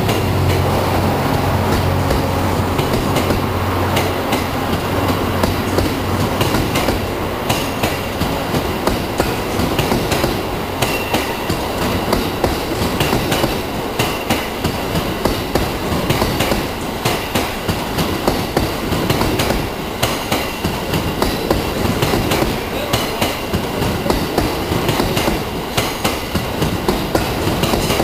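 Coaches of the Cassiopeia sleeper express rolling past, their wheels beating out a regular clickety-clack over the rail joints. A low steady hum in the first few seconds fades as the cars go by.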